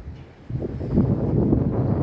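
Strong gusty wind buffeting the microphone, dipping briefly about half a second in and then coming back hard.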